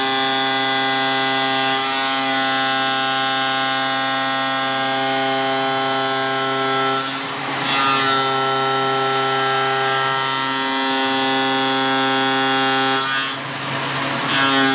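Tormach CNC mill roughing a metal plate's profile with a 3/4-inch Shear Hog indexable cutter, giving a steady pitched cutting whine. The tone breaks twice, about seven and a half and thirteen and a half seconds in, with a brief hissing scrape.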